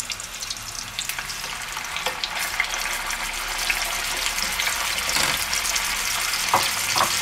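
Minced-beef roulades sizzling and crackling as they brown in hot oil in a frying pan. The sizzle grows louder a few seconds in, as a bacon-wrapped roll is added to the pan, and there are two light knocks near the end.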